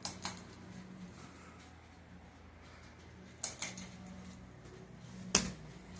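A few sharp clicks and knocks, the loudest near the end, over a faint steady low hum.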